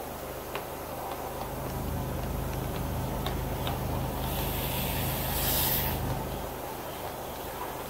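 Light scattered clicks and rattles from a cable being worked inside a dryer vent hood, over a steady low engine-like hum that swells in the middle. A brief hiss comes about four seconds in and stops about two seconds later.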